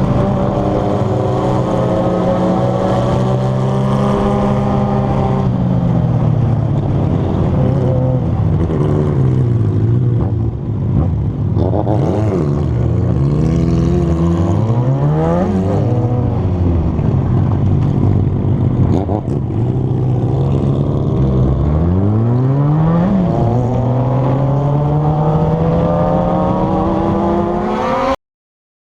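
Kawasaki Z750 inline-four motorcycle engines running loud and revving, the pitch rising and falling again and again, with several quick up-and-down revs in the middle and again later. The sound cuts off abruptly shortly before the end.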